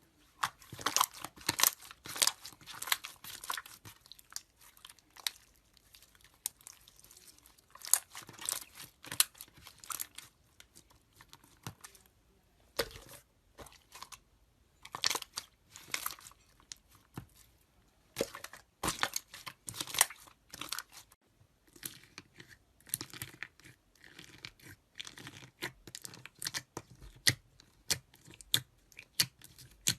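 Slime being squished and pressed by hand, giving irregular clusters of crackling, popping clicks with short pauses between them.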